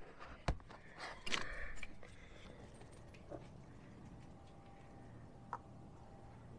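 Handling noises as a plastic antenna mount is set down and a caulking gun is picked up: a sharp click, then a short clatter about a second in. A few faint ticks follow while sealant is squeezed from the caulking gun.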